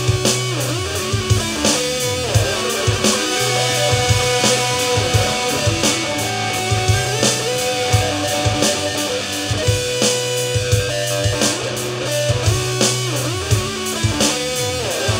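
Rock jam: an electric guitar plays a melodic line with sliding, bending notes over a steady drum beat and held low bass notes.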